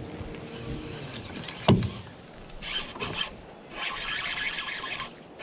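One sharp knock about a second and a half in, then two stretches of hissy, scraping noise.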